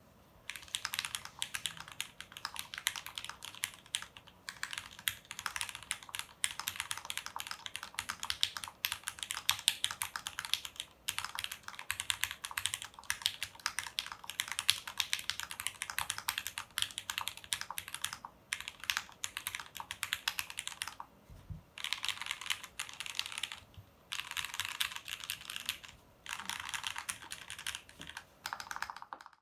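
Typing test on a custom ergonomic mechanical keyboard with a stacked acrylic, Poron-gasket-mounted case, lubed Gateron Yellow linear switches and PBT keycaps: fast, continuous keystrokes with a few short pauses.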